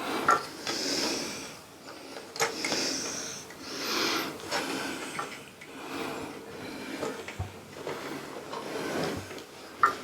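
Hands handling and fitting telescope mount parts together: irregular rubbing and sliding with a few light knocks.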